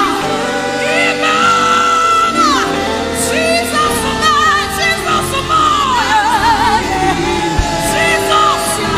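Live gospel worship music: a singer's long held notes, wavering and sliding down at their ends, over sustained instrumental backing.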